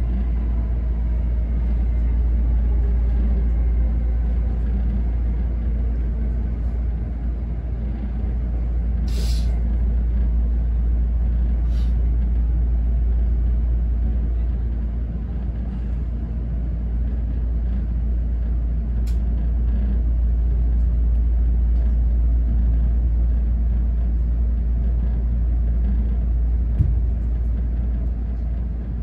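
Interior running sound of an E217-series electric train's Green Car slowing into a station: the motors' whine falls in pitch over the first few seconds under a steady low rumble. A short sharp hiss comes about nine seconds in.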